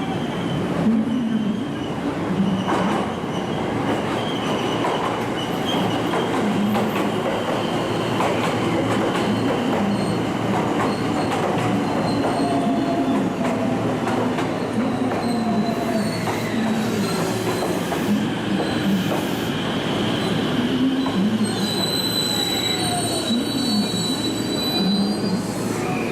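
A train rolling through the station with a steady rumble, its wheels squealing in thin high tones that grow strongest near the end.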